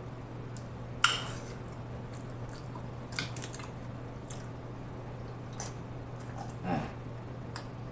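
A man's sharp hiccup about a second in, then quieter mouth and swallowing sounds as he gulps a drink from a glass mug, with a few small clicks. A steady low hum runs underneath.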